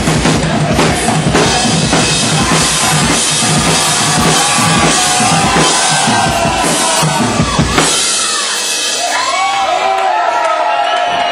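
Rock drum kit played fast and hard as an improvised drum solo, ending on a final hit about eight seconds in. Then the drums stop and the crowd shouts and whoops.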